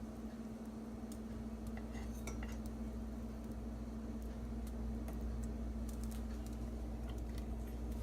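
A few light clinks of a metal spoon against a pan or utensils, some with a brief ring, over a steady low hum.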